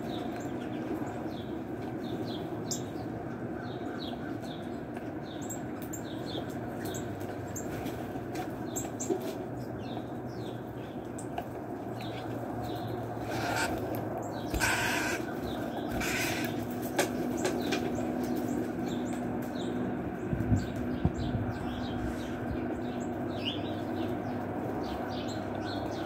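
Small birds chirping, many short, sharp chip notes one after another, over a steady low rumble, with a few brief wing flutters about halfway through as birds fly in and out.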